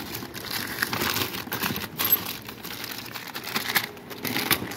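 Newspaper crinkling and rustling as hands rummage through a cardboard box and pull out wrapped items, with scattered light clicks of small hard objects.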